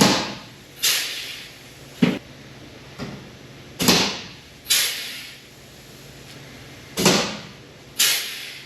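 Pop rivets being set through the sheet-metal body panels of a race car, about eight sharp pops roughly a second apart, with a pause of about two seconds after the sixth.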